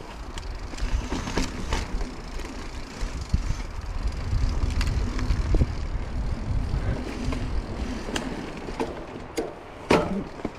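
A mountain bike rolling down a dirt singletrack: a steady low rumble of tyres over dirt and roots, with frequent rattles and clicks from the bike over bumps. A brief louder sound comes near the end.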